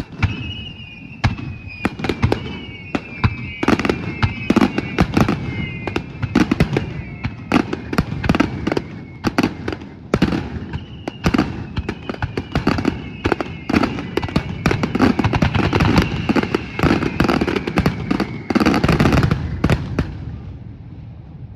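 Fireworks display: a dense, rapid salvo of shell bursts and crackling, with a high tone slowly falling in pitch running under them, dying away over the last couple of seconds.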